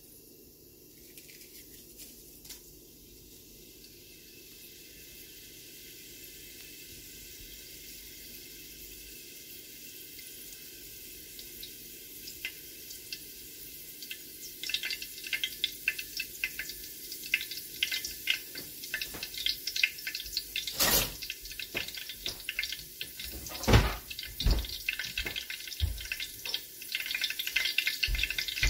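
Fresh curry leaves and fennel seeds spluttering in hot oil in a metal uruli. A faint hiss grows slowly, then dense crackling and popping starts about halfway through. Two much louder sharp cracks come later on.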